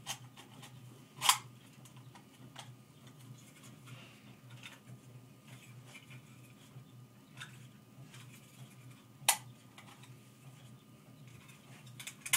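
Metal parts of an AR-15 20-round magazine being handled and fitted together during reassembly: scattered light clicks and taps, with two sharp clicks, one about a second in and one about nine seconds in, over a low steady hum.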